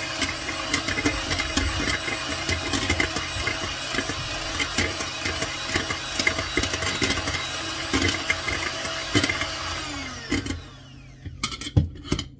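Electric hand mixer running, its wire beaters whisking pancake batter in a metal bowl with frequent clicks as they knock the bowl's sides. About ten and a half seconds in it is switched off and winds down, followed by a few sharp knocks of the beaters on the bowl.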